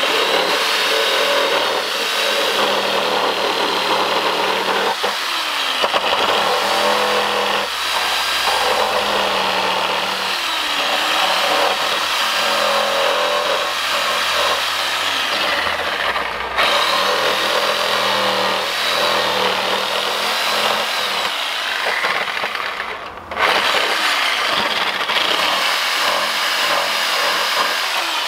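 A corded electric power tool cutting into a wooden pallet slat to notch it, its motor pitch shifting as it bites into the wood. It stops briefly twice, about 16 and 23 seconds in, then starts cutting again.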